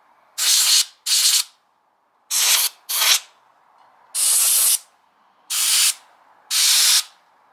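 Can of compressed-air duster fired in seven short bursts of hiss, each about half a second, blowing dust out of a PlayStation 5's main system fan.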